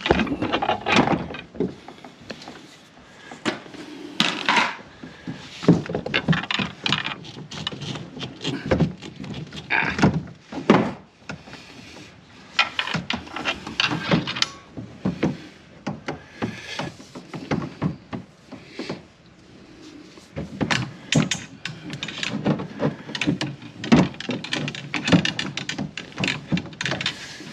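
Irregular knocks, clunks and rattles as a spinning rod and reel are moved and repositioned in a homemade PVC rod holder on a folding kayak.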